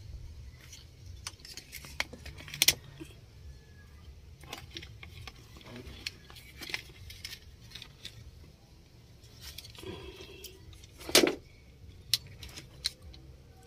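Scattered clicks, taps and small metallic rattles from hands working the wiring and connectors under a steering column, with one louder knock about eleven seconds in.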